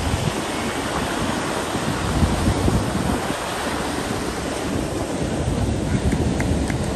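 Ocean waves breaking and surf washing in, a steady rushing wash, with wind buffeting the microphone in gusts.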